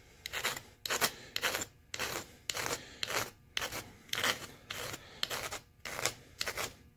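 Flat hand file rasping along the edge of a thin sheet-metal part in short strokes, about two a second, truing the sawn edge so its radius runs smooth.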